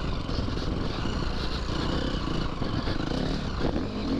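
Dirt bike engine running while the bike is ridden along a motocross track, heard from the rider's camera with a dense rumble; the engine pitch wavers up and down in the second half.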